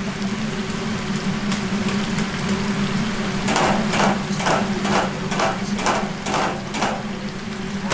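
Chicken frying in a deep fryer of hot oil, sizzling over a steady low hum. From about halfway through, a run of about ten sharp metal knocks, roughly three a second, as the wire mesh strainer full of fried chicken is knocked against the fryer to shake off the oil.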